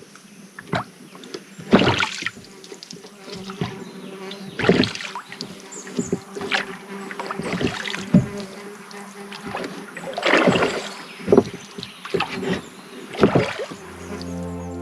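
Oars of a rowing dinghy dipping and pulling through calm river water, one stroke about every three seconds, with small knocks between strokes. A faint steady hum runs underneath.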